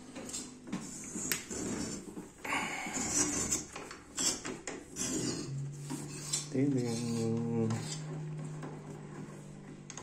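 Metallic clinking and scraping as a chrome threaded water fitting in a tiled wall is gripped and twisted by a gloved hand to unscrew it. A short pitched sound comes about two-thirds of the way through.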